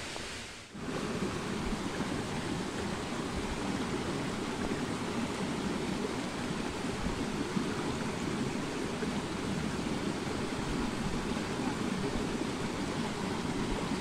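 Shallow forest stream running over rocks in a small cascade: a steady rush of water that starts just under a second in.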